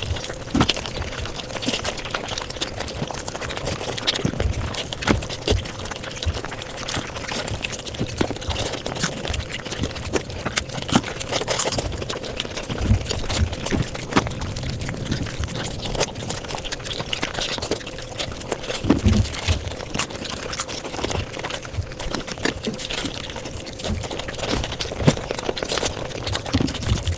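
Mukbang eating sounds sped up fivefold: a dense, unbroken run of quick chewing and mouth clicks.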